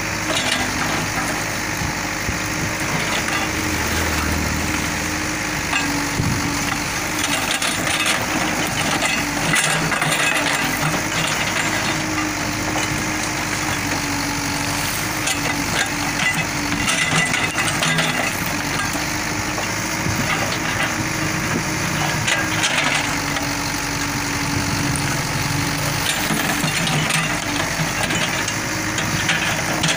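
Case 770 backhoe loader's diesel engine running steadily as the backhoe arm works, with a droning tone throughout. Scattered crunches and clicks of clods and stones sound as the bucket pushes loose soil back into a trench.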